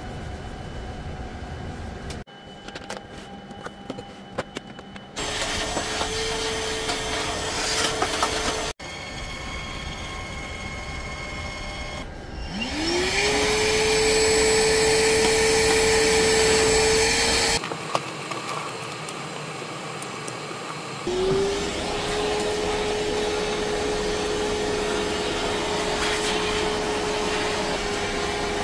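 Canister vacuum cleaner running with a steady motor whine. Twice the motor starts up with a quick rising whine to full speed. Before the first cut-in there is only a quieter steady background hum.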